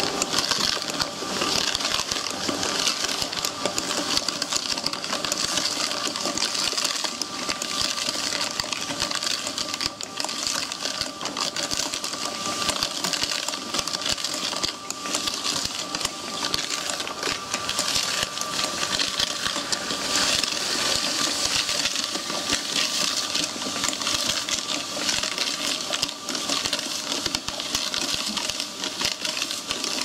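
Electric mortar mixer running steadily, its paddles churning a wet, gritty sand-cement mix against the metal bowl. The result is a continuous scraping, grinding hiss over a steady motor whine.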